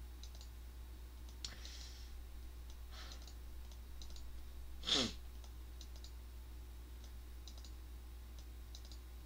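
Faint scattered clicks over a steady low hum, with one short, louder sound about five seconds in that falls sharply in pitch.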